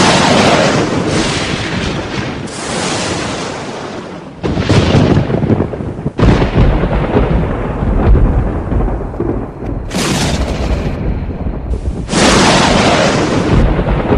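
A string of loud thunderclaps, one after another, each starting suddenly and rolling away into rumble. The crashes come about every two to four seconds.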